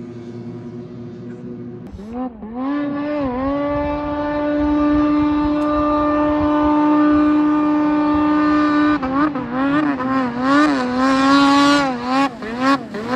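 Arctic Cat Sno Pro 600 two-stroke snowmobile engine held at steady high revs while skipping across water. About two seconds in it gives way to a louder 2018 Arctic Cat M8 two-stroke snowmobile engine: its pitch dips twice, holds high and steady, then rises and falls repeatedly in the last few seconds as the throttle is worked, getting louder as it comes closer.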